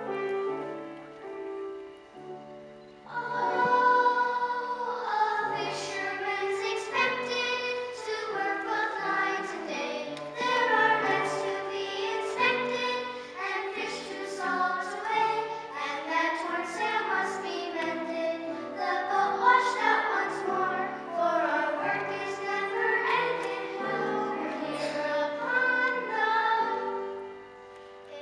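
A group of children singing a song together over a piano accompaniment. The piano plays alone for about three seconds before the voices come in.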